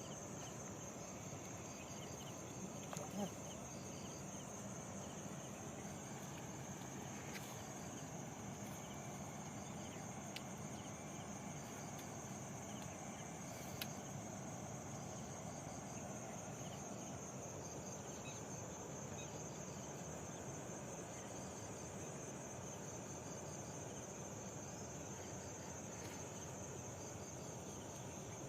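Insects chirring in one steady, high-pitched, unbroken trill, with faint repeated chirps above a low outdoor hiss. A couple of soft knocks about three seconds in and again near the middle.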